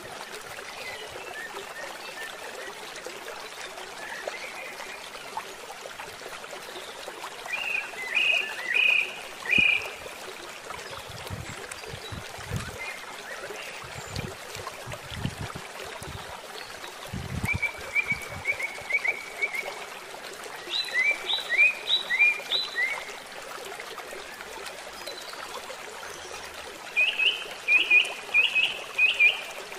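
Steady rush of running water, with short high calls repeated in quick runs of four or five notes, several times over. A few low thumps come near the middle.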